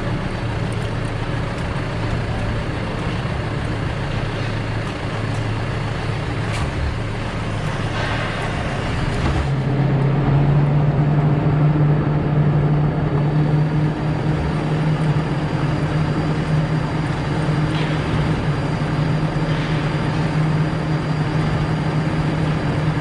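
Forklift engine running steadily, then speeding up about ten seconds in and holding at the higher speed, louder, with a few light clicks just before.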